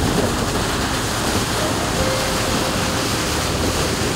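Steady rush of water along the hull of a boat under way, with wind on the microphone.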